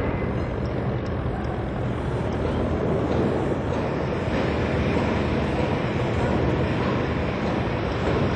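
Steady mechanical drone, like a large engine or heavy machinery running, with a low hum under it.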